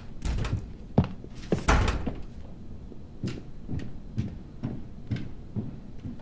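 A door opening and shutting, with a sharp knock and a heavier thud in the first two seconds. Then footsteps on a hard floor, about two steps a second.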